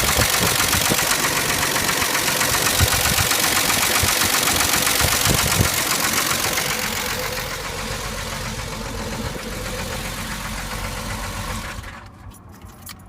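1989 Jeep Renix 4.0-litre inline-six running with a repeated deep knock from inside the engine, a knock bad enough that the owner writes the engine off. It gets quieter and then cuts off near the end.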